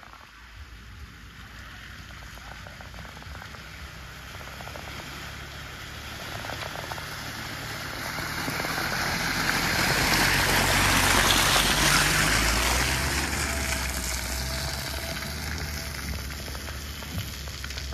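Mitsubishi L200 Triton pickup driving slowly past on a muddy trail: a low engine rumble under a hiss of tyres on wet mud. It grows louder as the truck approaches, is loudest as it passes about ten seconds in, and fades as it drives away.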